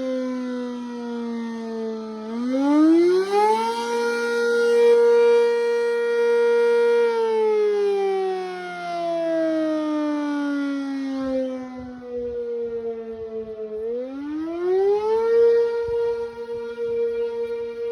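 Sentry 10V electromechanical outdoor warning siren sounding a slow wail. Its pitch climbs over about a second and a half, holds for a few seconds, then sinks slowly over about seven seconds. It climbs again and holds near the end.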